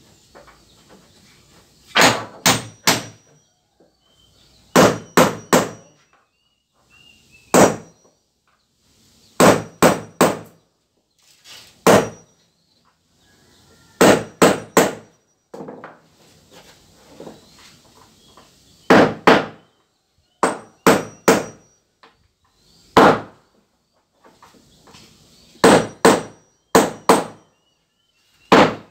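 Hammer blows on wooden floor planks, nailing down the boards: short runs of two to four sharp strikes every two to three seconds, some with a brief metallic ring.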